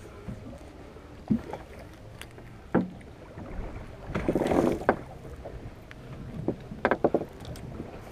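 Sounds aboard a small fishing boat: a low steady hum with scattered sharp knocks and thumps on the boat, and a louder rush of noise about four seconds in.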